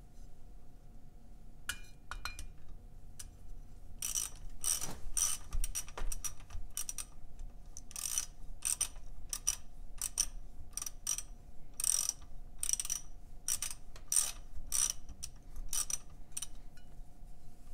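Half-inch drive ratchet clicking in short runs as it turns the propeller nut back onto an outboard's prop shaft, starting about four seconds in.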